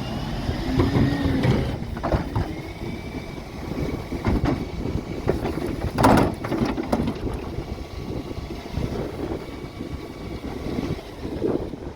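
Dennis Elite 6 refuse truck at work on a bin round: the diesel engine runs steadily under repeated clattering bangs as wheelie bins are lifted and emptied by the bin lift. There is a brief whine near the start and one loud crash about six seconds in.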